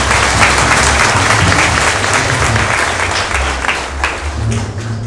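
Congregation applauding, a dense steady clapping that thins and dies away about four seconds in.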